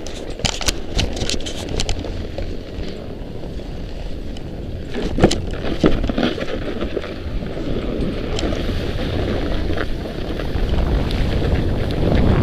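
Wind buffeting an action-camera microphone as a low rumble, with scattered clicks and knocks from handling and snowboard gear. Near the end a louder, brighter scraping rush rises as the snowboard starts sliding over packed, tracked snow.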